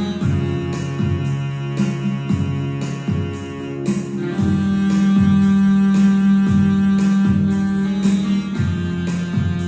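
Instrumental song introduction: held chords over a steady, evenly spaced beat, with no singing yet.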